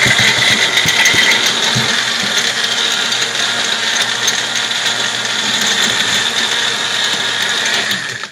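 Magic Bullet personal blender running steadily as it blends a smoothie, its cup held pressed down on the motor base; the motor cuts off suddenly near the end.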